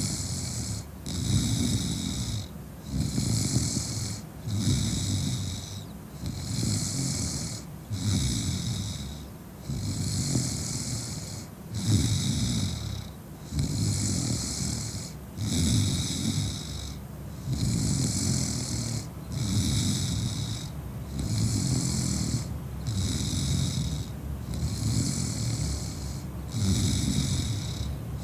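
A woman snoring in a heavy drunken sleep, with regular snores about every one and a half to two seconds, each a low rasping rumble followed by a breathy hiss.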